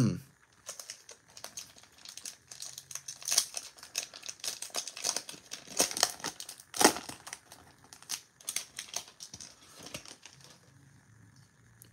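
Plastic wrapper of a baseball card pack crinkling and tearing as it is ripped open and peeled off the cards: a dense run of sharp crackles, with two louder rips about three and a half and seven seconds in.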